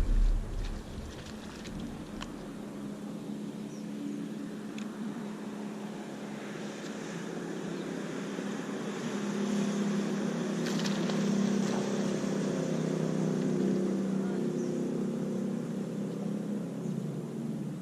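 Boat motor running with a steady hum that grows slightly louder about halfway through, with a few light clicks near the start.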